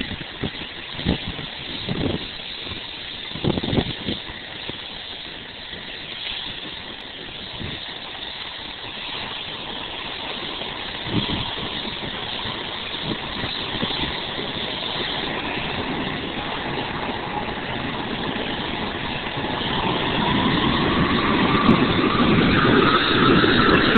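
Boeing 757's twin jet engines running up for takeoff: a steady rumble that grows steadily louder, with a rising whine in the last few seconds. A few short thumps come in the first four seconds.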